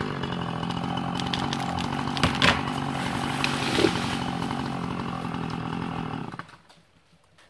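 Husqvarna Rancher 450 two-stroke chainsaw idling steadily just after a felling cut, with a few sharp cracks about two and a half and four seconds in. The engine cuts out about six seconds in.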